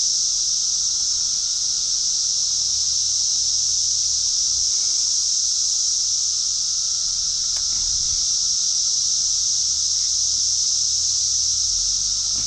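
A steady chorus of insects droning at a high pitch without a break, the summer buzz of the creekside woods. A faint click sounds about halfway through.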